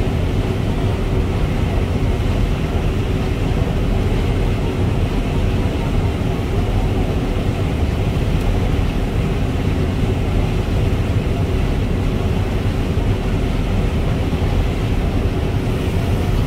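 Combine harvester running steadily while cutting dry standing corn, heard from inside the cab: a constant machine drone with a deep rumble and a steady hum over it.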